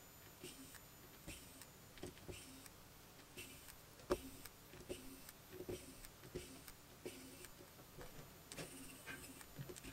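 Faint SEQURE SQ-ES126 electric precision screwdriver driving small cap screws into a miniature engine's aluminium cover, running in short spurts about every two-thirds of a second, with light clicks of the bit on the screws and a sharper click about four seconds in.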